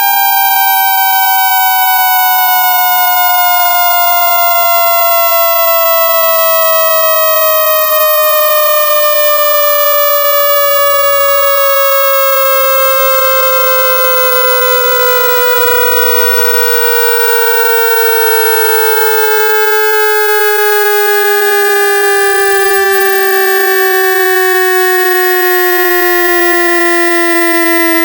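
Synthesized speaker-cleaning tone sweep: two electronic tones, each with many overtones, glide slowly apart. One falls steadily in pitch while the other rises. It is a sweep meant to vibrate a phone speaker and push out trapped water and dust.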